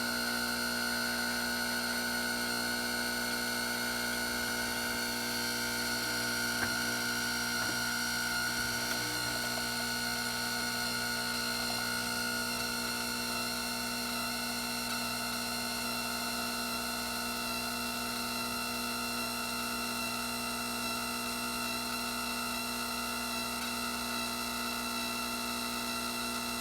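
Gaggia Anima super-automatic espresso machine giving off a steady whining noise, several fixed tones held without change.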